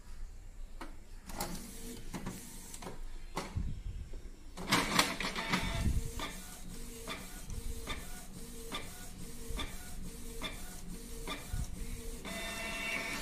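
Canon PIXMA G2000 inkjet printer printing a nozzle check test page after a system cleaning meant to clear a missing magenta colour. A few clicks come first. From about four and a half seconds in, the paper feed and print head run with repeated clicks and an on-off hum, and a higher whine sounds near the end.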